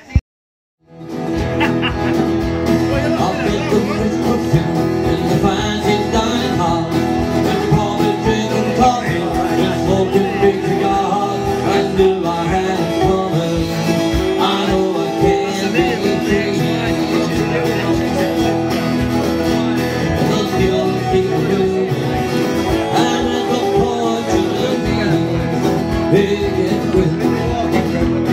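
Background music with plucked strings and a steady beat, starting about a second in after a brief silence.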